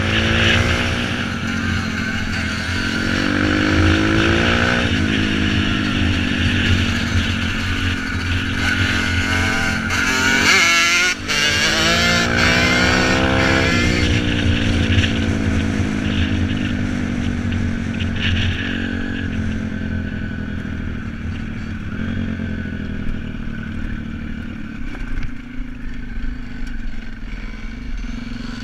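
Yamaha YZ125 two-stroke motocross engine under way, revving up through the gears and easing off. Its pitch climbs repeatedly and drops back at each shift, with the hardest acceleration in the middle.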